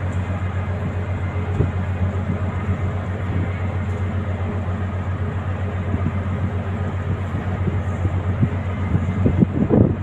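Steady low engine rumble, with a few short knocks near the end.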